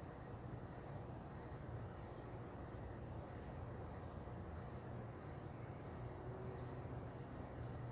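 Insects, likely crickets, chirping in an even rhythm of about two high-pitched pulses a second over a steady low hum.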